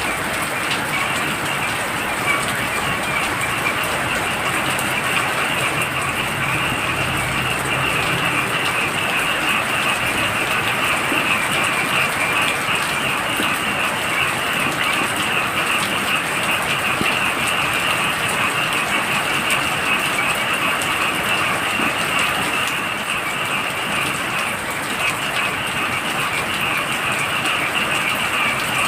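Heavy rain falling steadily, with a dense chorus of frogs calling continuously over it in a high, trilling band.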